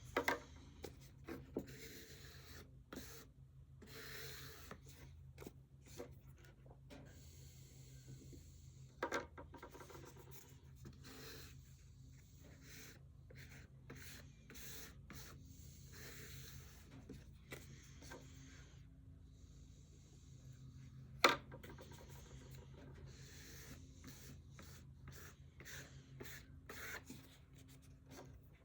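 A card wiping diamond paste across a leather strop in repeated rubbing strokes, with a few sharp taps, the loudest about three-quarters of the way in.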